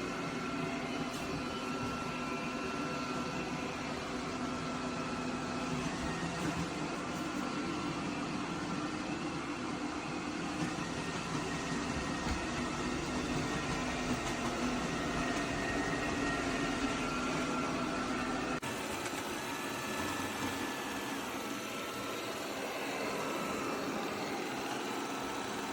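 eufy Omni C20 robot vacuum running: a steady motor and suction hum with faint thin whining tones. About eighteen and a half seconds in, the sound changes suddenly and turns thinner, with less low hum.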